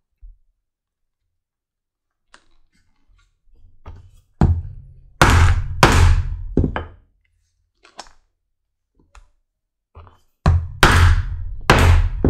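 Mallet blows on a leather hole punch, driving it through the stitched double layer of holster leather to open the belt-loop holes. A group of heavy thunks comes a few seconds in, a lone blow follows, and a second group of blows comes near the end.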